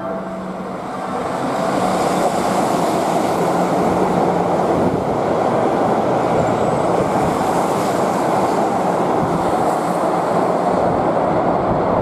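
Keihan Main Line electric train passing through the station without stopping: its running noise builds over the first couple of seconds, then holds steady.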